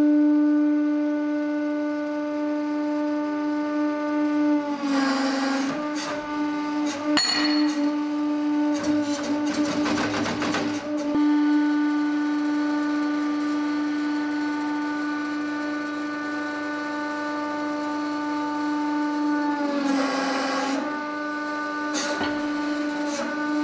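Hydraulic press pump motor running with a steady droning hum. Its pitch sags twice, about five seconds in and again near the end, as it takes the load of the ram squeezing Play-Doh figures. Bursts of crackling noise come with the pressing.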